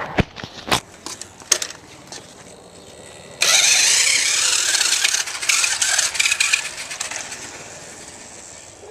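Toy RC monster truck's small electric motor and gears whirring as it drives off over pavement, powered by a repaired 6-volt battery pack. It starts suddenly about three and a half seconds in and fades as the truck moves away, after a few knocks and clicks.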